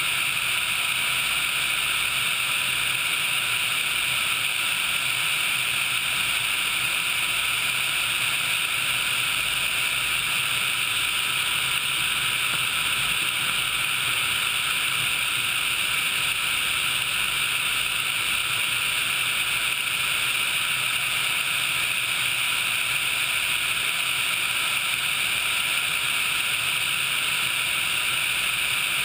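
Steady, unbroken rushing noise of a twin-turbine HH-60 Pave Hawk helicopter in level flight, with the engine and rotor noise mixed with a hiss of airflow over the microphone.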